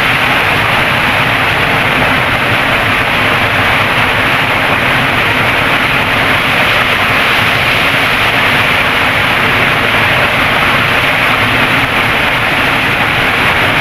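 Small waterfall plunging into a rocky pool: a steady, loud rush of churning water.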